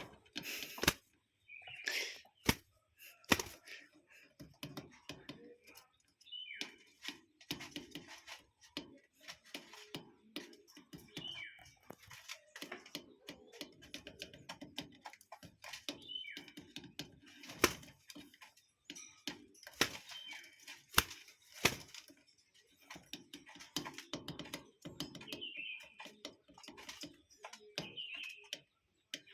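A bird giving short, high, falling chirps every few seconds, among many sharp clicks and taps.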